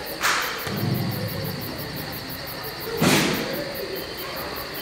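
Two bangs about three seconds apart, each with a short echoing tail, and a low hum in between.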